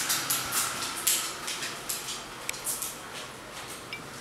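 Dogs' paws scuffing and clicking on a hard floor as they move about: a run of short, irregular scuffs and ticks, several a second.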